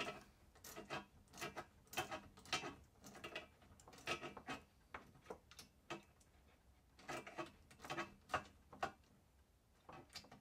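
Hand tools tightening the small bolts that hold a UTV radiator fan motor to a fan shroud: a Torx driver turning from above while a wrench holds the nut below. There are irregular sharp clicks and ticks of metal tool on fastener, about two a second, with short pauses.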